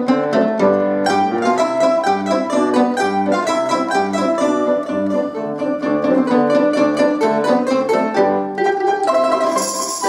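An ensemble of domras plays a brisk folk tune in quick plucked notes, with piano accompaniment. Near the end a tambourine shakes in with a jingling rattle.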